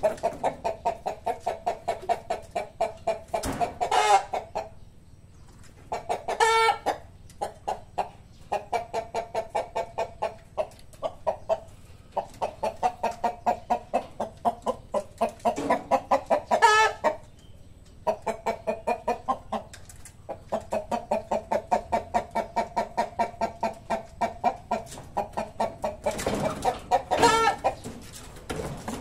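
Chickens clucking in long runs of about three to four clucks a second, with a few short pauses. Four louder, drawn-out calls stand out above the clucking.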